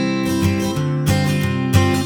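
Background music: strummed acoustic guitar playing chords with a steady beat.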